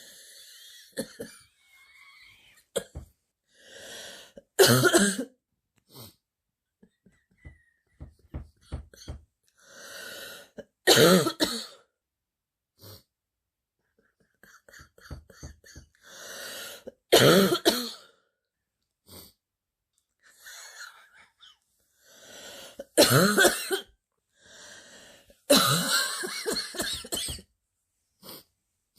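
A girl's deep barking cough from a bad cold: five coughing fits about six seconds apart, each after an audible breath in, the last a longer run of several coughs.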